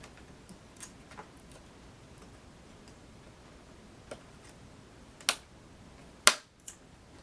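Laptop RAM modules (Corsair Vengeance DDR3) being pushed down into their slots: a few light clicks, then two sharp snaps about a second apart near the end, the sound of the slot's retaining clips locking the modules in place.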